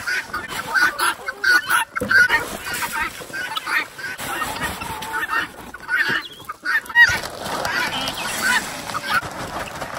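A flock of laying hens squawking and clucking, many short overlapping calls, as they crowd around feed buckets at feeding time.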